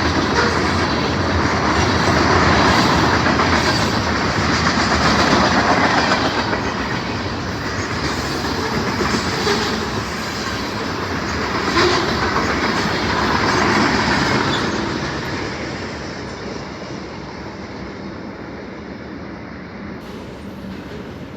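Freight train cars rolling past, wheels clacking on the rails in a steady rumble that swells and ebbs as the cars go by. The sound fades over the last several seconds as the train moves off.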